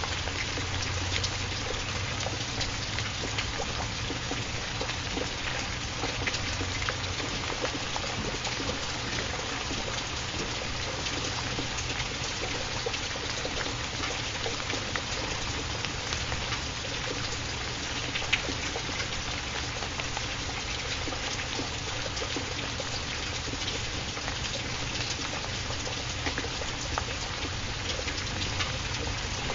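Steady rain falling: an even hiss, dotted with small sharp drop ticks.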